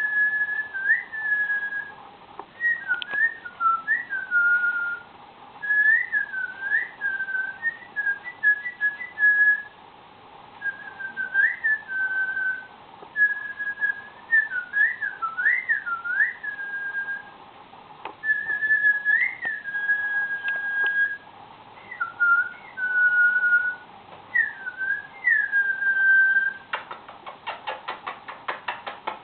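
Cockatiel whistling a series of short phrases, clear single notes that swoop up and drop back, with brief pauses between them. Near the end comes a quick run of clicks.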